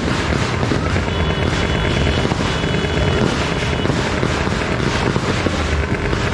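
Ground fireworks going off continuously: a dense, steady run of rapid pops over a hissing rush, with no break.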